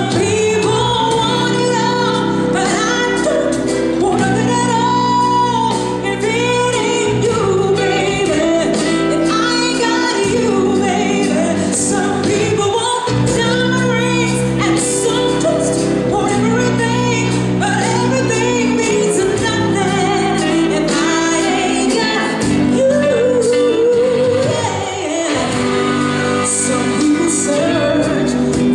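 A woman singing live into a handheld microphone over instrumental accompaniment, amplified through the PA of a large hall.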